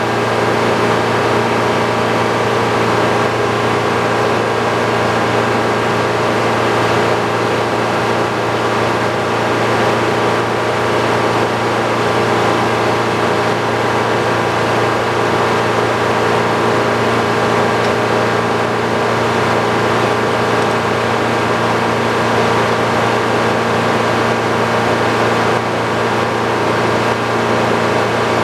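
Old Frick sawmill running steadily, its power unit and spinning saw giving a constant loud machine hum with several steady tones.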